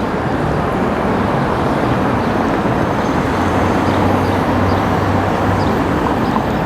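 Steady rumble and running noise of a moving vehicle, with a low hum rising out of it through the middle.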